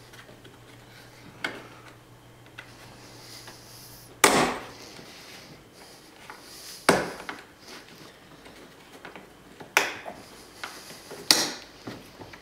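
Plastic trim clips on a car's interior rear door panel snapping loose as the trim is pried off: about five sharp snaps a couple of seconds apart, the loudest about four seconds in.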